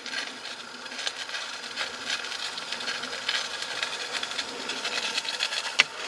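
Tealights in metal cups being handled and set down into a metal tealight-warmer bowl, with one sharp clink near the end, over a steady faint scratchy background.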